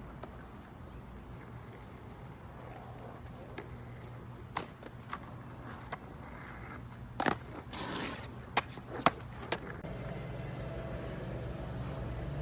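Skateboard on a hard surface: a run of sharp clacks from the board's tail and wheels hitting the ground, with a short stretch of wheels rolling in the middle. Near the end a steady low hum takes over.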